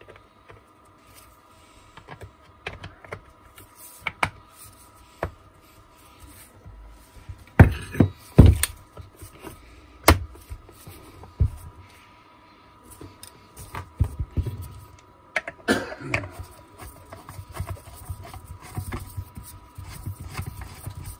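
Angle grinder being reassembled by hand: scattered clicks and knocks of plastic and metal parts being fitted together, with a cluster of louder knocks about eight seconds in and another sharp knock about ten seconds in.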